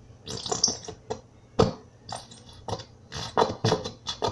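Clear PVA glue being squeezed out of its bottle into a bowl: a run of irregular squelches and clicks as air and glue push through the nozzle.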